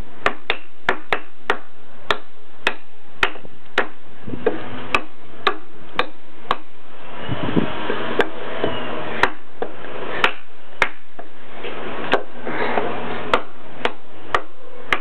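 A thick-bladed Busse ASH-1 fixed-blade knife chopping repeatedly into a wooden block on a tiled floor, about two sharp strikes a second at first and more spaced out in the second half, the wood splitting into chips.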